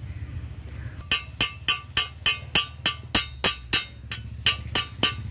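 A metal tool rapping on a freshly arc-welded steel joint to knock the slag off the weld: a quick run of ringing metallic taps, about three a second, starting about a second in with a brief pause near the middle.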